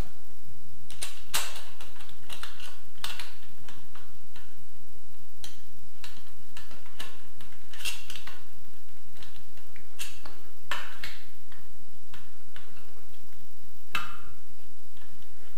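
Irregular light metallic clicks and taps as a small screwdriver works a set screw in a chrome bathroom fitting and the metal parts are handled.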